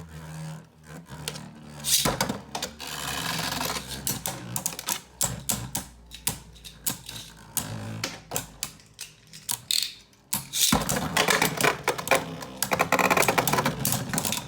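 Plastic Beyblade spinning tops and launchers clicking and rattling, with dense runs of rapid clicks as the tops clash in a plastic Beystadium.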